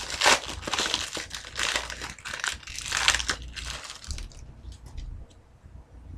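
Hockey card pack wrapper crinkling and rustling as it is torn open, for about the first three and a half seconds. A few faint ticks follow.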